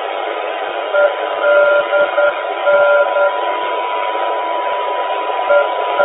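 Non-directional navigation beacon EDN on 341 kHz, received on a homemade regenerative longwave receiver and played through a computer speaker: its Morse ident '. -.. -.' beeping on and off over loud hiss, starting over near the end. A steady higher whistle runs under it, with scattered crackles of static.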